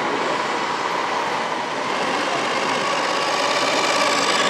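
Radio-controlled model trucks running, a steady mechanical hum with a faint whine that grows slightly louder near the end.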